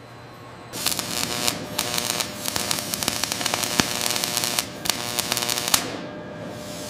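A loud hissing, crackling noise starts about a second in and cuts off near six seconds, over a steady hum.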